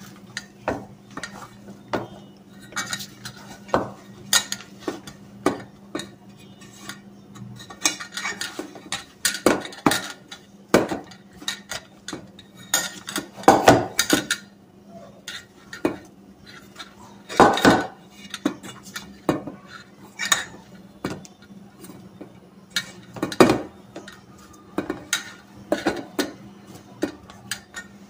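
Stainless steel bowl knocking and clattering irregularly against the counter as soft dough is kneaded by hand in it, with a few louder clanks among the lighter knocks.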